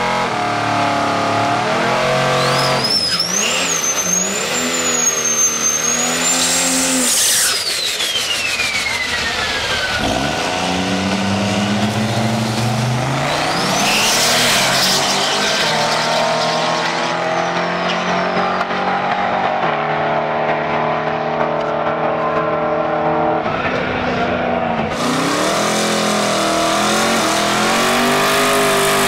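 Diesel drag truck, a Ram 1500 with a 6.7 Cummins on compound turbos, revving at the line: a high whistle climbs and then falls away, and the engine is then run at full throttle down the strip. About 25 s in, a vintage Chevy drag car's engine revs in a burnout, with tires squealing.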